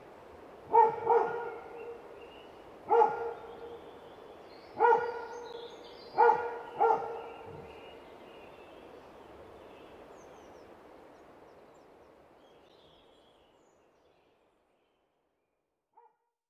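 A dog barking about six times, singly and in pairs, over a steady background hiss that fades away about two-thirds of the way through.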